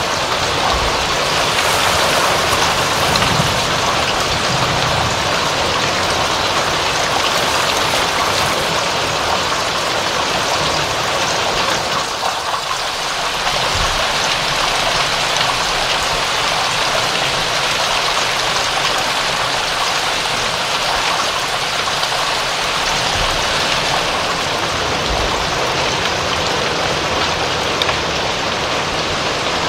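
Steady heavy rain falling, a dense even hiss of drops with a few soft low thumps.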